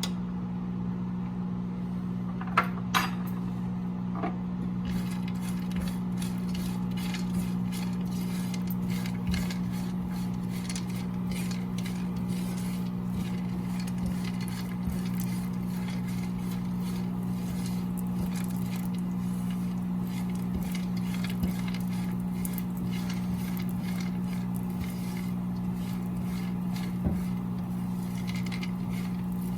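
Almonds and pistachios roasting in clarified butter in a hot pan: a few clinks about two to three seconds in, then a fine steady crackling sizzle, over a steady low hum.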